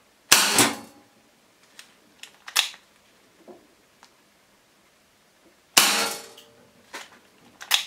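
Toy pistol fired twice, about five and a half seconds apart, each shot a sharp bang with a short fading tail. Lighter clicks of the gun being handled come in between and near the end.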